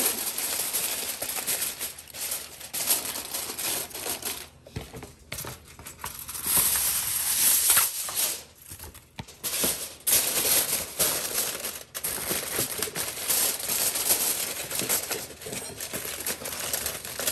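Aluminium foil crinkling and rustling in irregular bursts as it is handled and spread over a dish to cover it.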